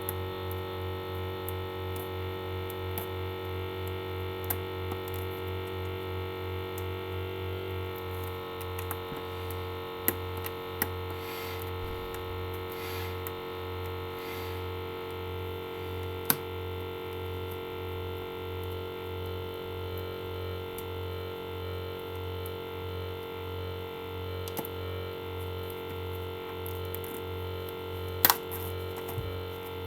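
Background music with sustained synthesizer tones over a steady pulsing low beat. A few sharp clicks and taps come through it, the loudest near the end.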